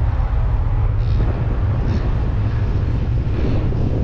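Wind buffeting the phone's microphone: a loud, steady, gusty rumble with no clear pitch.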